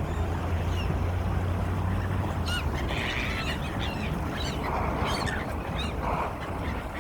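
Several birds calling in short, squeaky, gliding cries, thickest about three seconds in, over a steady low hum.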